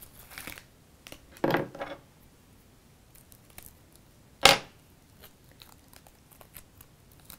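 Adhesive vinyl being handled and weeded by hand on a cutting mat: soft rustles and small ticks, a short crackling rustle about a second and a half in, and a single sharp knock about halfway through, the loudest sound.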